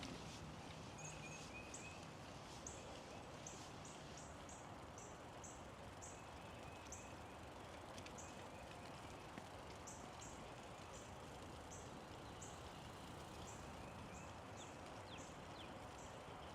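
A small bird repeating short, very high-pitched calls about twice a second, over a faint steady hiss, with a brief lower trill near the start and a few quick falling notes near the end.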